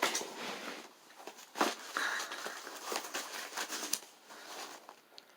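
Paper and plastic mail packaging being handled, rustling and crinkling with a few sharp clicks and scrapes.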